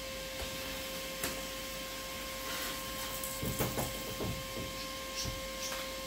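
Steady electrical hum with a constant high whine, broken by a few light knocks and clicks.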